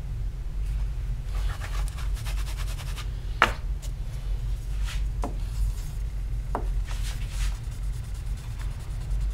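Hand rubbing and scraping strokes on a copper printing plate, in three short spells, with a few sharp taps, over a low steady hum.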